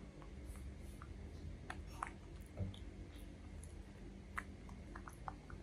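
A baby macaque chewing, with faint scattered mouth clicks and smacks over a low steady room hum.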